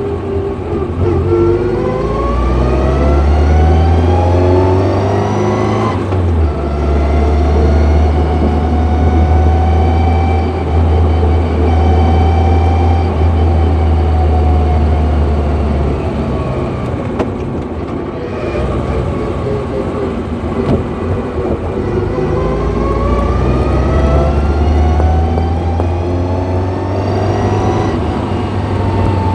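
Car driving with a loud gear whine from the gearbox over the engine's hum. The whine rises in pitch as the car speeds up, holds steady, falls in the middle as it slows, then rises again near the end. The whining is the sign of a worn gearbox.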